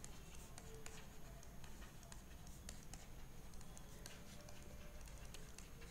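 Faint taps and scratches of a stylus writing on a tablet screen, in scattered light ticks.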